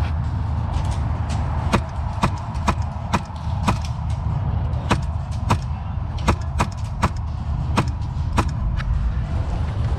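Airsoft gun firing single shots: about fifteen sharp cracks, mostly half a second to a second apart, over a steady low wind rumble on the microphone.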